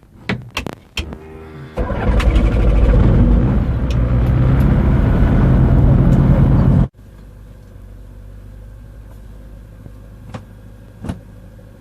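A few clicks, then the autogyro's piston engine cranks and starts about two seconds in, running loud for about five seconds. The sound then drops abruptly to a much quieter steady engine hum with occasional clicks.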